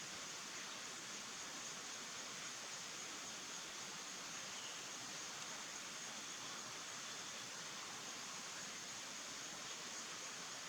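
Steady, even hiss of background noise with a thin high-pitched whine running through it.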